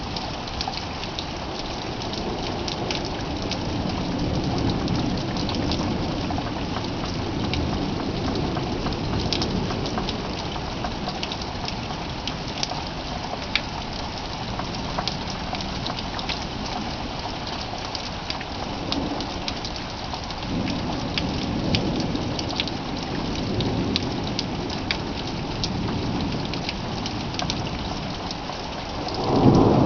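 Steady rain, with single drops ticking on a nearby surface. Low thunder rumbles through it twice and swells into a loud thunderclap near the end.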